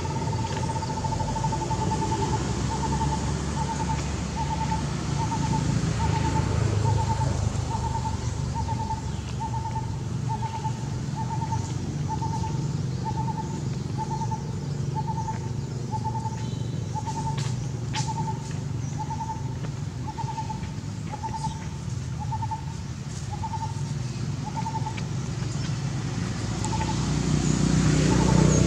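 A bird repeating one short hooting note, a little more than once a second, in an even series that slows and stops near the end. A steady low rumble runs underneath.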